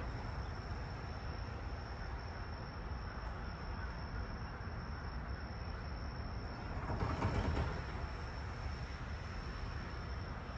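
Steady low rumble of train-station background noise, swelling briefly about seven seconds in, with a faint steady high-pitched whine throughout.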